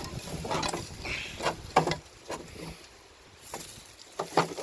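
Rusted trailer brake drum handled by hand: irregular knocks, clinks and scrapes of rusty metal, about eight in all, with a quieter spell in the middle.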